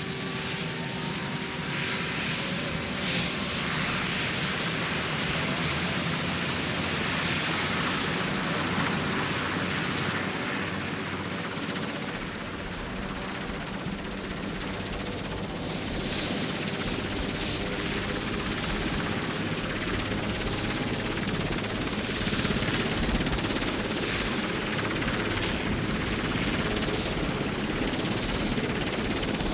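Marine One, a Sikorsky VH-3D Sea King helicopter, running on the ground with its main rotor turning: a steady turbine and rotor noise that eases slightly for a few seconds around the middle.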